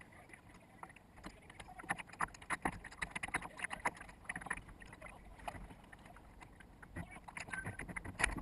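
Water splashing and slapping against a sailboat's bow as it sails, sped up to four times normal speed so the splashes come as a rapid run of sharp clicks.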